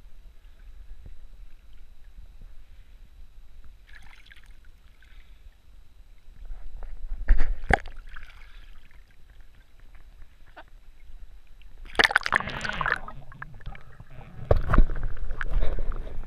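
Water sloshing and splashing against a waterproof camera at the surface, with a sharp splash about halfway through and louder splashing and gurgling in the last few seconds as the camera dips underwater.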